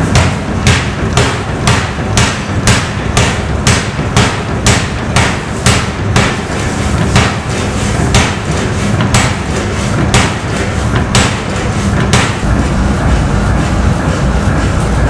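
Béché 500 kg air power hammer upsetting a glowing billet held on end: heavy blows about two a second for the first six seconds, then slower single blows about a second apart, which stop about twelve seconds in. The hammer's steady low running noise continues throughout.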